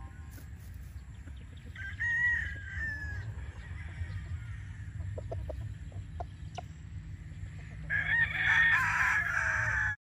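Roosters crowing: a shorter crow about two seconds in, then a louder, longer crow starting about eight seconds in.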